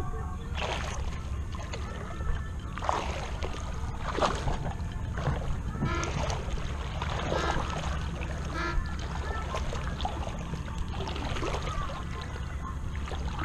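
Water sloshing and swishing irregularly against a camera held at the surface of calm shallow water, over a steady low rumble.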